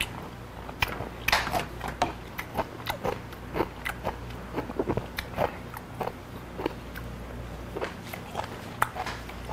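A person chewing raw beef and offal close to the microphone: many short, irregular wet mouth clicks and smacks.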